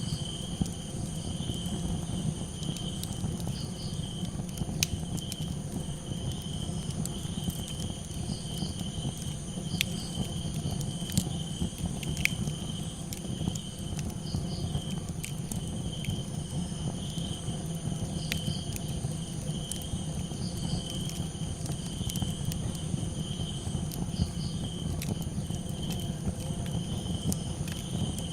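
Crickets calling in a steady pulsing trill, over the crackle of a campfire: scattered sharp pops and a steady low rumble from the fire.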